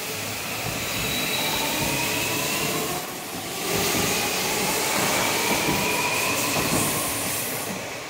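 Hanshin 5700-series electric train pulling away from the station, its traction motors whining upward in pitch as it accelerates. The whine breaks off briefly about three seconds in, then climbs again over the wheels rolling on the rails. The sound fades near the end as the train leaves.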